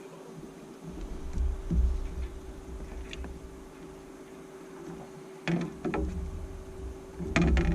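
A steady hum with two or three clusters of knocks and rattles over a low rumble: handling noise in a fishing boat.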